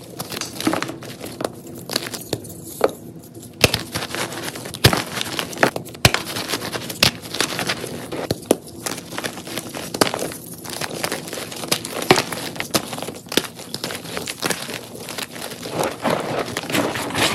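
Blocks of gym chalk being crushed and crumbled by hand: a dense, irregular crackling with sharper snaps scattered through.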